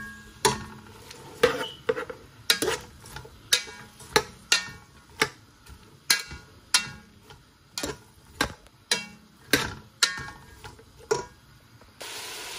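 Metal spoon stirring sliced onions in ghee in a metal pot, knocking and scraping against the pot about twice a second, some strikes ringing briefly. Near the end a steady frying sizzle takes over.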